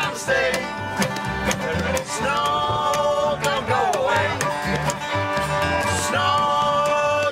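Acoustic bluegrass band playing: fiddle, resonator guitar, acoustic guitar and upright double bass. The bass plucks a steady beat under long held melody notes that slide in pitch.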